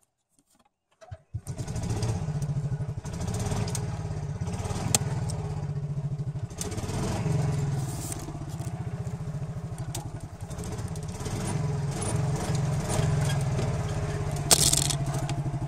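Golf cart engine running steadily with an even low pulsing as the cart drives; the sound comes in abruptly about a second in, after near silence. A short, loud noisy burst comes near the end.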